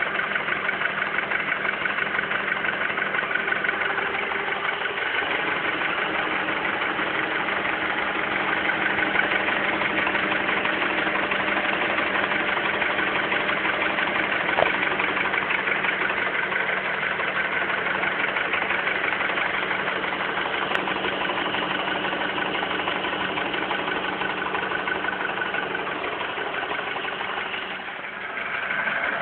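Honda Accord's K20 2.0-litre inline-four engine idling steadily, with the knock ("стучит") that the owner complains of.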